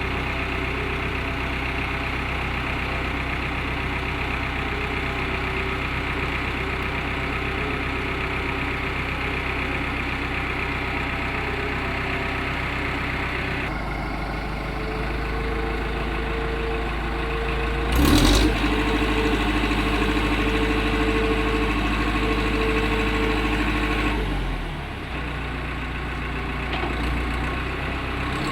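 Engine of an AJAX concrete mixer running steadily while mixing concrete. About halfway through its note changes and a steady hum joins in. A few seconds later comes one loud sudden clang, and the sound drops back shortly before the end.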